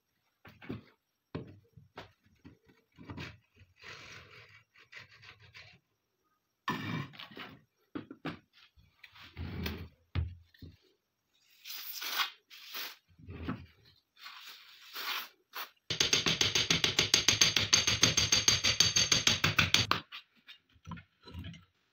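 Rusty steel parts of an AK-47 being stripped by hand: scattered scrapes, clicks and knocks as the recoil spring and bolt carrier are worked out of the receiver. Near the end comes a fast, even rattle lasting about four seconds, the loudest sound, followed by a few more clicks.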